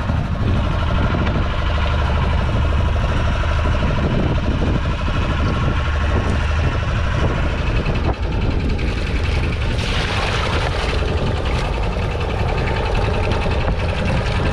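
Fishing boat's engine running steadily, with water sloshing and splashing in the fish holding tank as a basket is scooped through it, a louder splash about ten seconds in.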